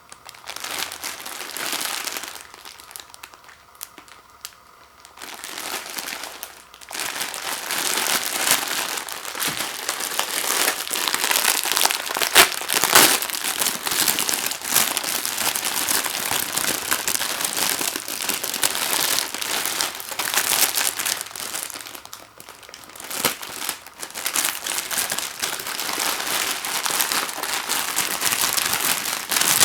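Crinkly plastic wrapping of instant ramen noodle packets crackling and rustling as it is handled, in bouts with short lulls.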